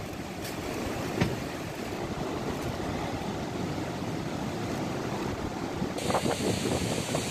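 Cyclone-force wind gusting through trees and buffeting the microphone in a steady rush, with one sharp knock about a second in. About six seconds in, the sound cuts abruptly to a different, hissier rush.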